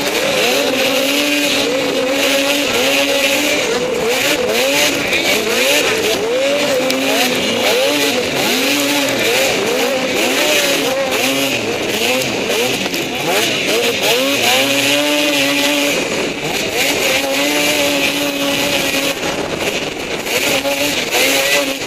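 Racing snowmobile's two-stroke engine at full race effort, revving up and dropping back again and again as the sled runs the bumps and corners, with a steady rushing noise over it.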